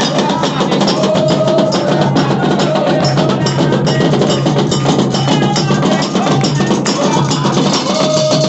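Candomblé drumming: hand drums with a metal bell ringing a steady, busy rhythm.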